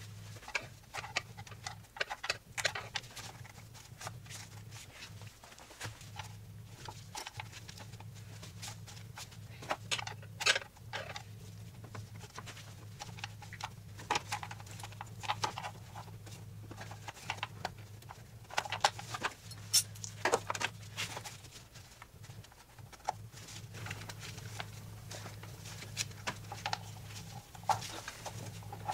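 Irregular clicks, taps and knocks of hand tools and metal parts being handled in a car's engine bay as a VANOS solenoid is worked out of the engine, over a steady low hum.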